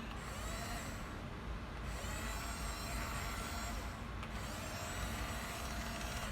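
Small electric motors and gearbox of an RC toy bulldozer whining as it drives, the pitch gliding up and down.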